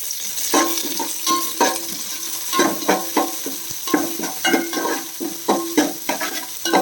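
Onions and a handful of curry leaves sizzling in hot coconut oil in a metal pan, while a ladle stirs and knocks against the pan about two to three times a second, starting about half a second in.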